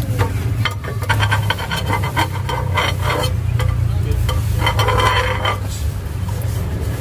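Flat metal spatula scraping around the edge of a thin, crisp crepe on a hot round griddle, a run of short rasping strokes with a longer one about five seconds in, loosening it from the plate. A steady low hum runs underneath.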